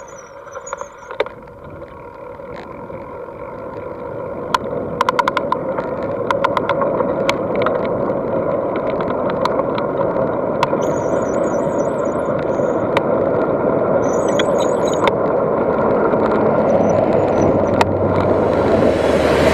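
Mountain bike on a downhill run: rolling noise grows steadily louder as speed builds, with scattered clicks and rattles.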